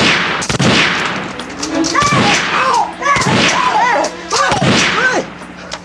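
A string of about five gunshots at irregular intervals of roughly a second, with men's voices crying out between them.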